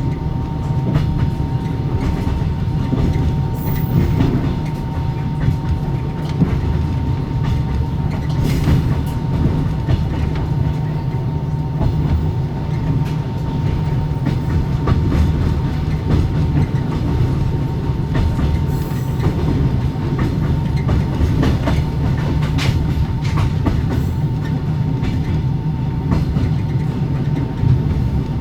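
Passenger carriage's axle-driven generator humming with a steady, even whine, over the rumble of the carriage running at steady speed and the clack of wheels over rail joints, heard from inside a sleeper compartment.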